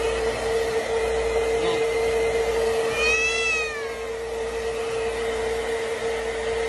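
A hair dryer blowing steadily, with a constant hum, while a cat meows once about three seconds in: a single call that rises and then falls in pitch.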